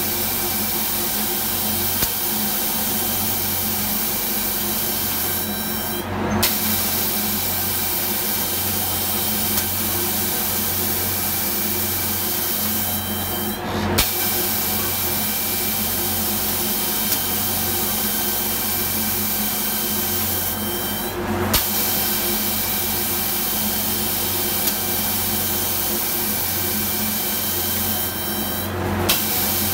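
Automatic paint-spraying machine running: a steady hiss of the spray guns over a low machine hum. The spray cuts off briefly about every seven to eight seconds, four times, with a sharp click at some of the cut-offs.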